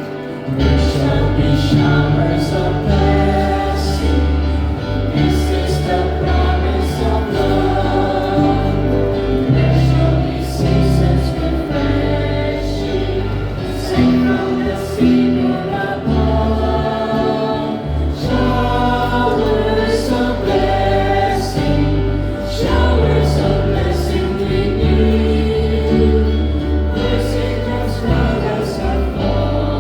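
Church choir singing a hymn with instrumental accompaniment, with strong sustained bass notes underneath.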